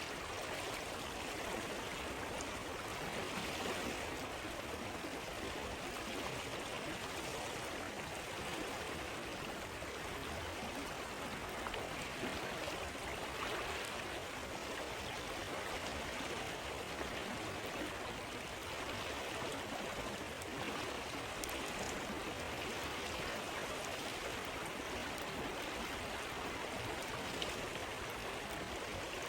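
A stream flowing over a riverbank, a steady, even rush of running water.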